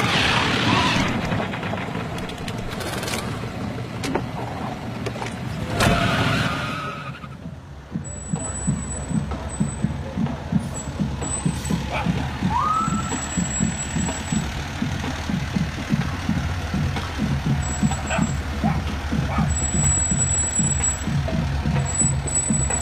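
A vehicle engine idling with a low, uneven pulse of a few beats a second, after several seconds of rushing noise.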